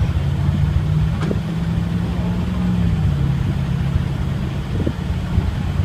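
A low, steady engine hum, its pitch dipping slightly about three seconds in.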